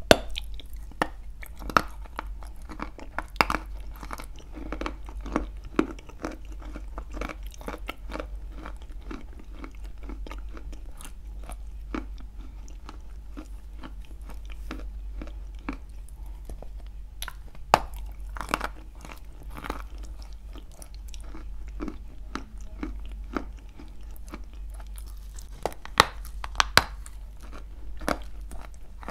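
Close-up biting and chewing of a dry clay chunk coated in a creamy paste. Sharp crunches and snaps come over softer, continuous chewing, with the loudest crunches clustered near the start and again near the end.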